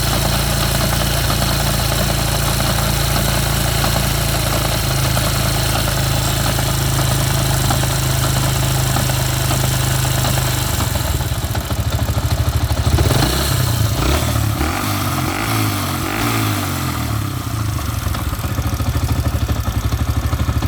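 Yamaha XTZ 125 single-cylinder four-stroke engine running with an abnormal engine noise. It holds a steady idle at first; from about halfway through, the engine note changes and wavers up and down for several seconds before settling.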